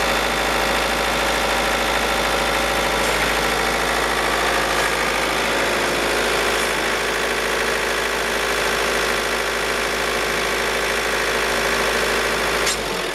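Truck engine idling steadily, with a short click near the end.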